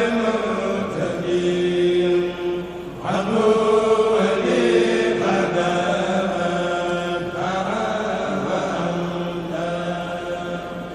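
Kourel of Senegalese Mouride men chanting a khassida, an Arabic religious poem, in unison, holding long notes, with short breaks between phrases every couple of seconds.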